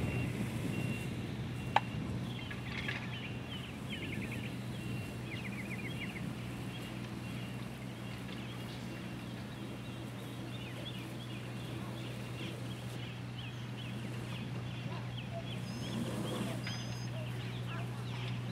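A steady low engine drone in the background, with birds chirping in quick runs of short calls over it and one sharp click about two seconds in.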